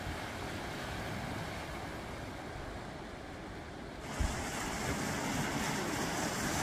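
Steady low rumbling noise; about four seconds in there is a thump, and a brighter hiss joins it.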